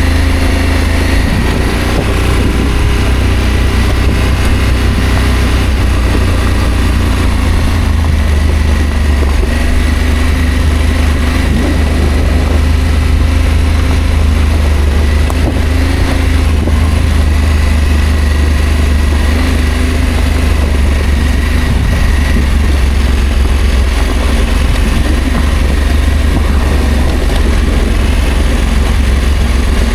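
Adventure motorcycle engine running at a steady pace while riding, with a heavy, constant low rumble and no sharp changes in revs.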